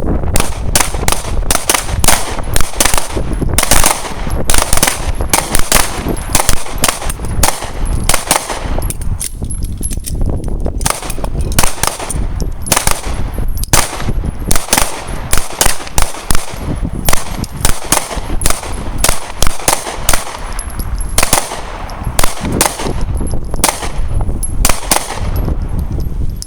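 Several pistols firing on a range, shots coming rapidly and overlapping, with a few short lulls.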